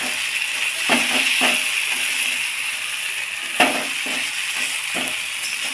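Spice masala frying in hot mustard oil in a kadai, sizzling steadily while a spatula stirs it. A few sharper scrapes of the spatula against the pan stand out, the loudest about three and a half seconds in.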